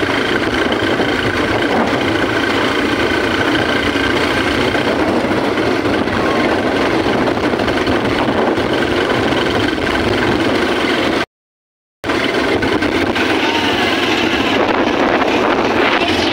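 Bajaj motorcycle of a sidecar tricycle running steadily on the move, its engine mixed with road and wind noise. The sound cuts out completely for under a second about eleven seconds in.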